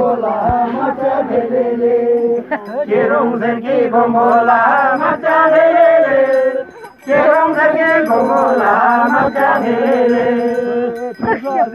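A group of voices singing a traditional Tamang mhane dora song in unison, in long held, wavering chant-like phrases, with a short breath break about two-thirds of the way through.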